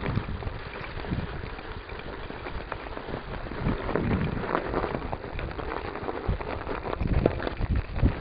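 Mountain bike riding over a snowy, rutted track, heard through the bike-mounted camera: a steady rushing noise of tyres and wind with irregular knocks and rattles from the bike.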